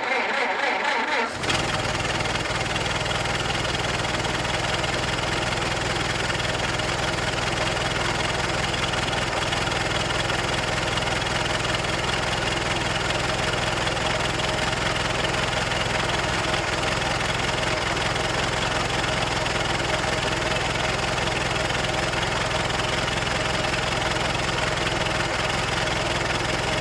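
Antique car engine cranked and catching about a second and a half in, then idling steadily with an even rhythm.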